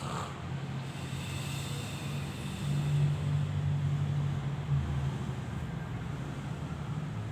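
A person snoring while asleep: a low snore that swells and fades, loudest from about three to four seconds in.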